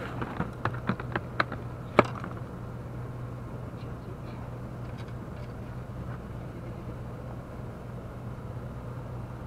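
A plastic cooler box being handled: a quick run of sharp clicks and knocks at its lid, ending about two seconds in with one louder knock as it shuts. A steady low hum continues underneath.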